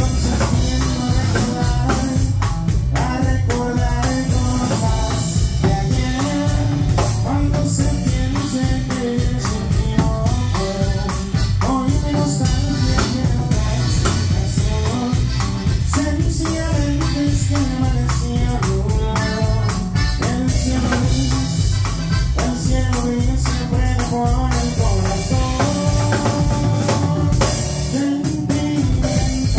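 Live band music played loud: an accordion carries the melody over a drum kit with a steady beat, bass and percussion.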